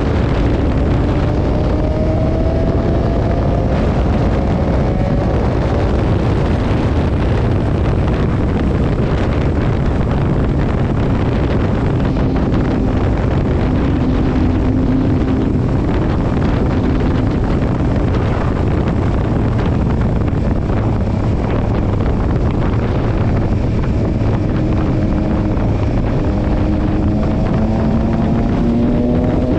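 Yamaha Tracer 9 GT's 890 cc inline-three engine running at steady road speed, with wind rushing over the microphone. The engine note rises a little in pitch near the start and again near the end as the bike speeds up.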